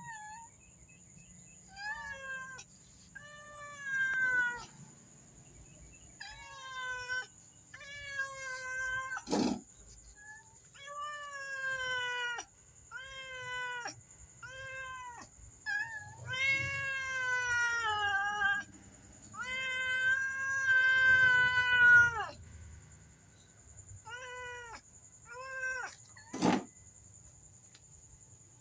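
Black house cats meowing over and over to be fed: about a dozen separate meows, several long and drawn out with a falling end, the longest and loudest around two-thirds of the way through. A sharp click comes twice, about nine seconds in and again near the end.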